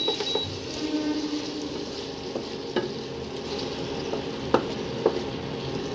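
Chicken and vegetables sizzling in a pan as they are stirred, with a spoon knocking sharply against the pan a few times in the second half.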